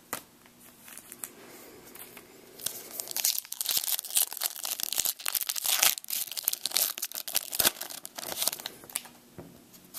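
Foil wrapper of a Topps 2017 Series 1 baseball card pack being torn open and crinkled by hand: faint handling at first, then a dense run of crackling and tearing from about three seconds in until near the end.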